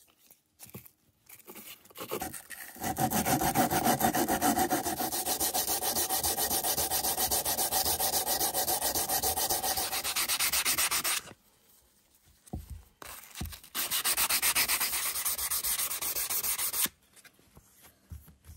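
Sanding a metal part of a pipe cutter, in quick, even back-and-forth strokes. It comes in two spells, a long one and then a shorter one, with a pause of about two seconds between them. There are a couple of light knocks during the pause.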